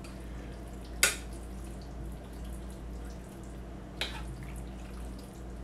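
A spoon stirring a wet chicken-and-dumpling mixture in a slow cooker's crock, knocking sharply against the pot twice, about a second in and again near four seconds, over a low steady hum.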